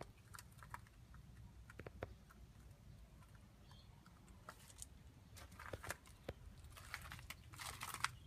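Faint footsteps on gravel: scattered light crunches and clicks, thicker near the end.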